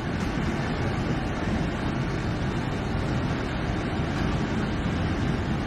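Steady rumble of a heavy truck running, even throughout with no knocks or changes in pitch.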